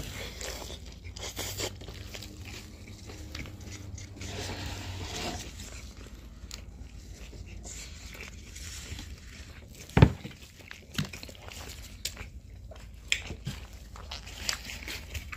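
Close-miked eating: biting and chewing flaky pastry and fries, with small crunches and clicks, and one sharp thump about ten seconds in.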